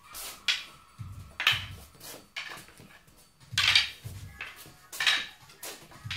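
Double kali sticks clacking together in a partner drill: sharp wooden strikes in an uneven rhythm, roughly one or two a second, the loudest near the middle, with low thuds between them.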